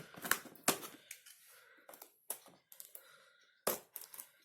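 Seal stickers on a cardboard keyboard box being opened by hand: an uneven series of sharp clicks and taps with short scraping and peeling sounds from handling the box.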